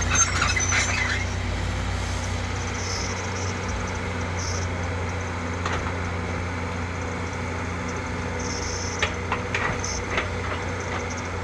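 JCB excavator running steadily with a low diesel hum, with short metallic squeaks and clicks from the working arm and bucket just after the start and again around nine to ten seconds in.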